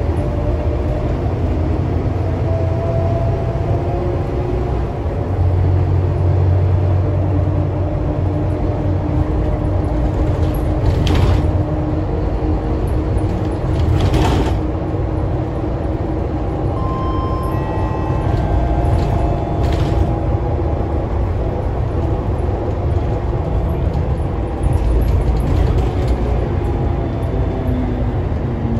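Interior ride sound of a Scania K320UA articulated city bus under way: a steady low engine and drivetrain rumble with whining tones over it, and a few knocks and rattles from the body.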